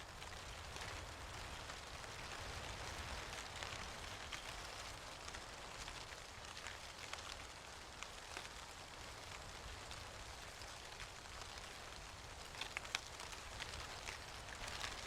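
Dry leaves falling and landing on leaf litter: a faint, steady patter of small ticks and rustles, with a short cluster of sharper clicks near the end.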